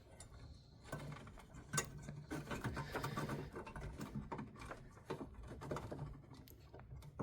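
Faint scraping and scattered light clicks of hands working a headlight bulb into the plastic clips at the back of a headlight housing.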